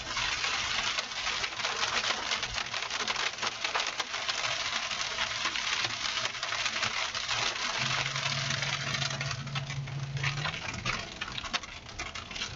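Rain and hail hitting a moving vehicle's roof and windshield: a dense patter of sharp clicks. A steady low hum joins for a few seconds past the middle.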